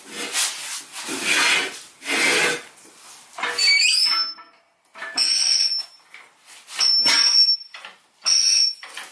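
A jack being pumped to lift the Jeep: a run of rhythmic handle strokes, about one a second at first. From about a third of the way in, each slower stroke brings a sharp high squeak.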